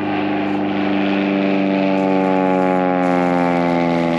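A motor engine running steadily, its pitch dropping slightly in the second half.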